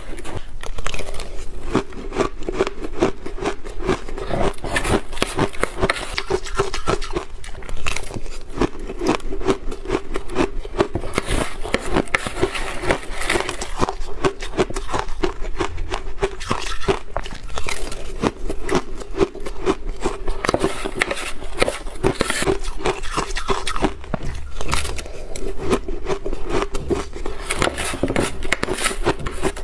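A metal spoon scraping and digging through frozen shaved blender ice in a clear plastic container, with crunching bites of the ice. It is a dense, continuous crackle with no pauses.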